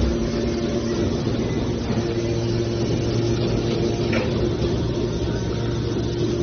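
Hydraulic metal baler running with a steady mechanical hum. A faint click comes about four seconds in.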